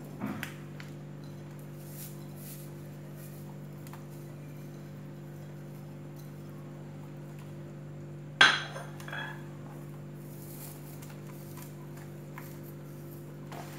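A ceramic plate set down with one sharp clink about eight seconds in, and a lighter knock just after the start. A steady low hum runs underneath.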